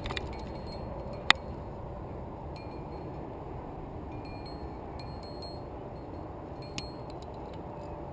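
Aluminium climbing carabiners clinking against each other as rope is clipped into a quickdraw, with a sharp metallic click about a second in and a few lighter clicks and brief ringing later.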